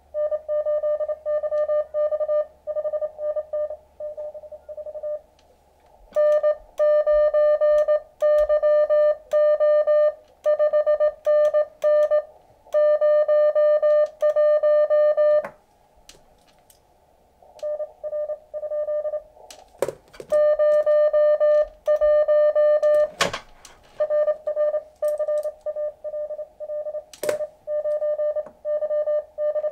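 Morse code (CW) from an Elecraft KX2 transceiver during a contest exchange: a single mid-pitched beep keyed rapidly into dots and dashes. It grows louder about six seconds in and pauses for about two seconds just past the middle. A few sharp clicks fall in the second half.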